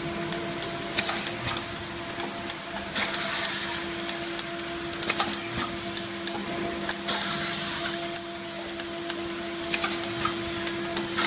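Automatic counting and packing machine for stacked disposable plastic bowls running: a steady motor hum with many irregular clicks and clacks from its moving parts.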